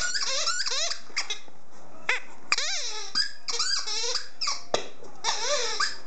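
Green JW Pet iSqueak rubber ball squeaking over and over as a dog bites down on it. The squeaks come in a quick, irregular series, each rising and falling in pitch, with a few short pauses.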